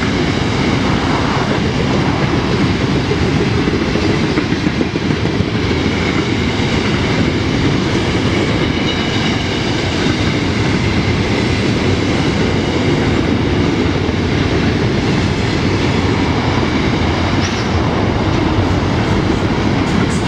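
Freight train of flat wagons loaded with steel coils rolling past at close range: a loud, steady noise of steel wheels running on the rails.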